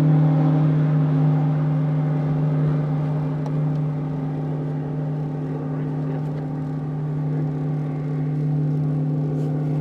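Boat motor running with a steady, even hum.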